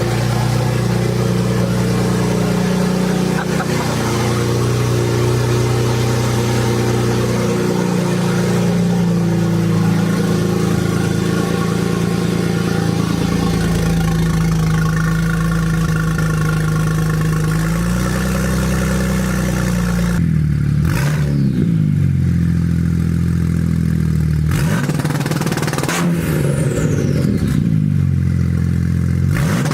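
BMW N54 twin-turbo 3.0-litre inline-six running loud on freshly fitted downpipes, its pitch shifting in steps and then rising and falling as it is revved in the last third. The engine is logging misfires on cylinders 4, 5 and 6 and a lambda sensor fault, which the owners put down to a couple of loose connections.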